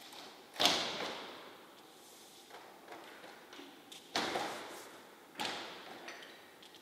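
A large paint brush slapped down and swept across paper three times: sudden swishing strokes that each trail off. The first comes about half a second in, the second at about four seconds, and a weaker one a second later.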